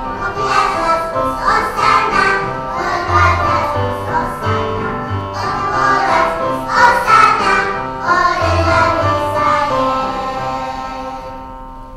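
Children's choir singing a Christian song, many young voices together, the song dying away near the end.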